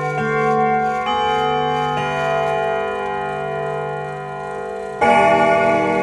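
Grandfather clock chiming: ringing bell-like notes of different pitches about once a second, slowly fading, then a louder strike about five seconds in.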